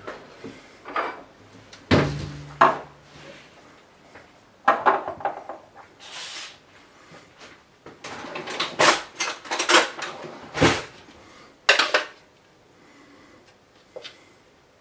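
Irregular kitchen clatter: a plastic blender jug and a small glass knocked and set down on a countertop, and a metal spoon clinking and scraping inside the plastic jug.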